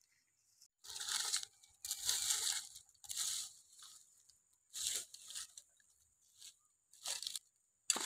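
A stick raking and scraping through charred stalks and ash in a fire pit, in a series of short scraping strokes about one a second.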